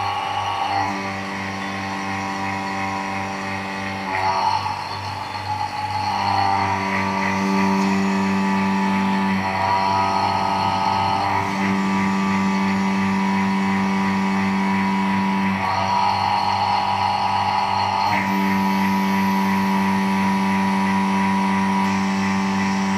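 Electric rotary-vane vacuum pump running steadily, drawing suction through a hose to a suction-cup gripper that lifts papads. It is a constant motor hum whose note shifts every few seconds.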